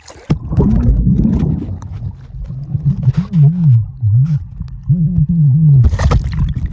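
Sound picked up by a camera held underwater while snorkelling: a heavy low rumble of moving water and bubbles. Through it runs a muffled voice heard through the water, wavering up and down in pitch. A burst of splashing comes near the end.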